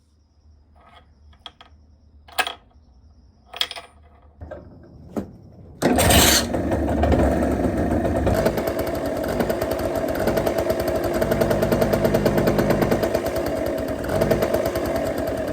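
50cc two-stroke scooter engine being started: a few clicks and knocks, then about six seconds in it fires and keeps running steadily at a fast, rattly idle. It has just been repaired and is running again.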